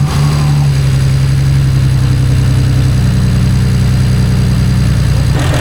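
BMW 335i's N54 twin-turbo inline-six idling loudly just after starting, on a start after its spark plugs were re-gapped and refitted to chase a misfire. The idle eases a little lower about two seconds in.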